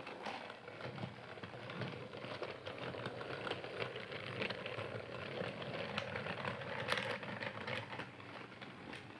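A small Percy toy train running: a fast, continuous rattling clatter over a steady motor hum.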